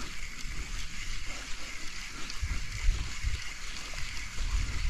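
Sea water washing and splashing, with low rumbles about two and a half seconds in and again near the end.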